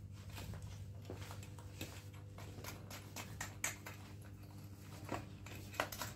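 Scattered light clicks and taps of plastic and metal as a child's tricycle seat is handled and pressed onto its frame and mounting screws, the sharpest about halfway through and near the end, over a steady low hum.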